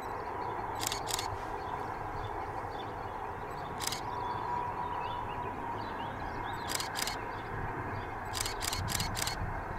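Steady outdoor background with a faint held tone, broken by short sharp clicks: two about a second in, one near four seconds, a pair near seven seconds and a quick run of four near the end.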